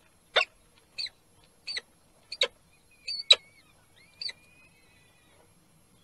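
Peregrine falcons calling at the nest: a run of about six short, sharp calls roughly two-thirds of a second apart, with a thin drawn-out whistle in the middle. The calls stop a little past four seconds in.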